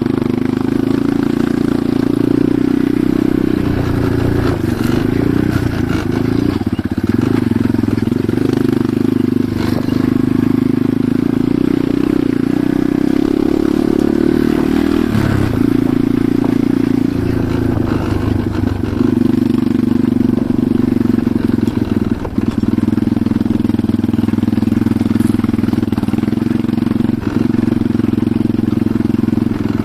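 Enduro motorcycle engine running while riding, its note rising and falling with the throttle, with a few short knocks along the way.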